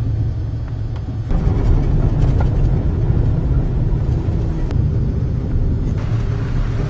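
A vehicle engine running with a steady low rumble, a few faint clicks over it.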